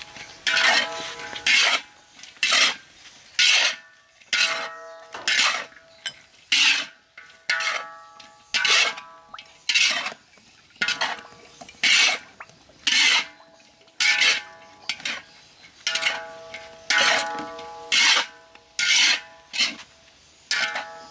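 Metal spatula scraping and tossing noodles and vegetables in a large metal wok: rasping scrapes about once a second, in a steady rhythm.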